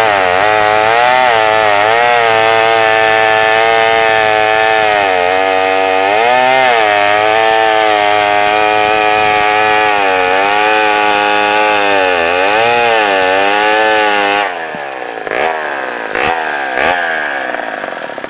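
1969 Poulan Model 53 two-stroke chainsaw cutting wood at full throttle, its pitch sagging and recovering as the chain bites into the log, running well on a freshly rebuilt carburetor. About 14 seconds in the revs drop off, the throttle is blipped three times, and the engine falls toward idle.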